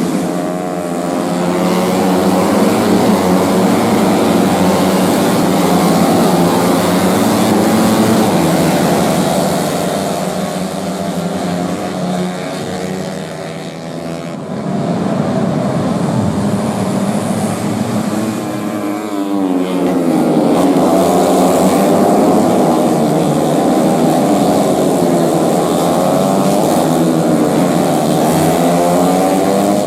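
Several four-stroke racing motorcycles with big-bore kits running at high revs, their engine notes rising and falling as they pass. The sound eases about 14 seconds in and builds again from about 20 seconds.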